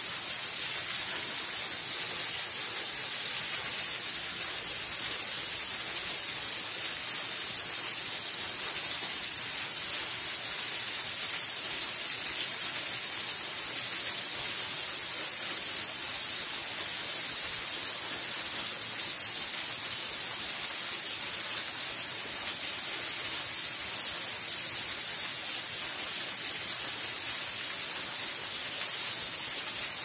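Small waterfall, a thin stream falling onto rocks and into a pool, making a steady high-pitched hiss of splashing water.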